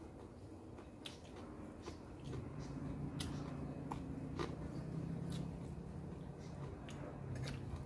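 Metal spoon clicking and scraping against a glass bowl of minced chicken salad, with chewing and a scatter of sharp clicks. From about two seconds in, a steady low hum runs underneath until near the end.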